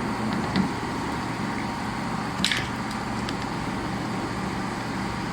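Small handling noises as the opened AC compressor run capacitor is worked apart by hand: faint ticks and one sharp click about halfway, over a steady hum.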